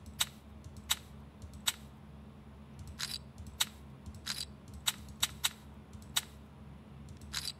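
About fifteen sharp clicks at uneven intervals as betting chips are placed on an online roulette table, over a low steady hum.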